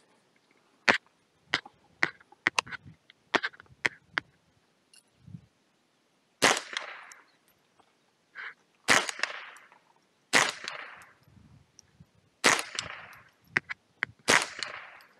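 Ruger 10/22 .22 rimfire semi-automatic rifle firing a string of shots. About nine sharp cracks come in quick succession in the first four seconds, then five louder reports follow roughly two seconds apart, each trailing off.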